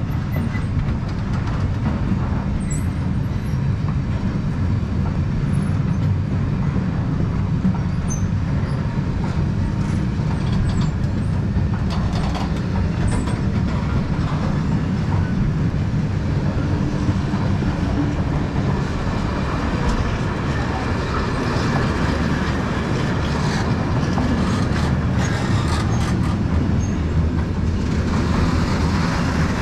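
A train rolling past: a steady heavy rumble of the wagons, with scattered clicks from the wheels on the track.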